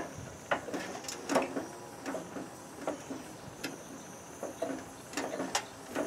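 Irregular metallic clicks and knocks as pliers grip, twist and wrench a seized part that is being heated with a torch flame, the part not coming free.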